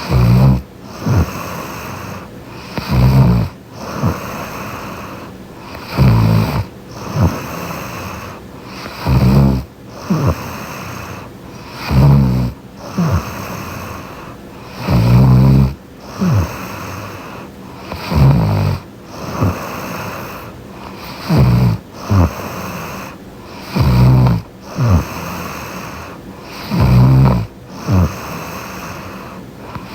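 A woman snoring in deep sleep, recorded close up: a loud, low snore about every three seconds, each followed about a second later by a shorter second sound.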